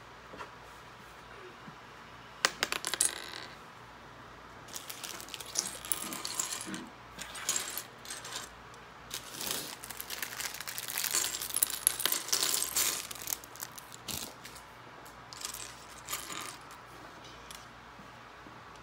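Loose plastic Lego pieces clattering and clicking against each other and the wooden tabletop as a hand rummages through and spreads the pile. The clicks come in irregular bursts, thickest in the middle.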